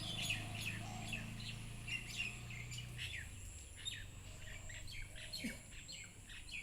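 Garden birds chirping: a string of short, quickly falling chirps, several to a second, with a low hum underneath.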